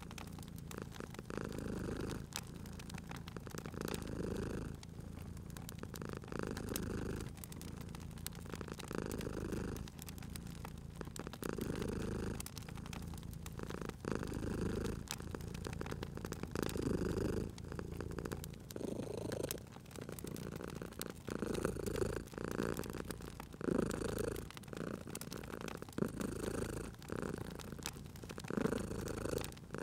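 Domestic cat purring, a low throb that swells and eases with each breath, about once every second or two. Crackling log fire pops and snaps throughout.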